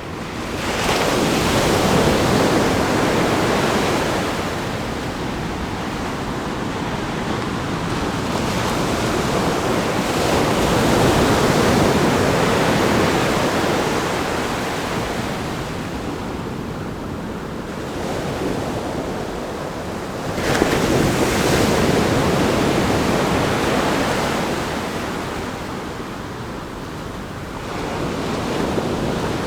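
Ocean waves breaking on a rock groin and sandy beach: continuous surf that swells into surges as each wave crashes, a sharp one about a second in and another about twenty seconds in.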